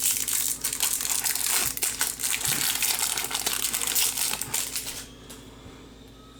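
Foil trading-card pack wrapper crinkling and crackling as it is handled and torn open, stopping about five seconds in.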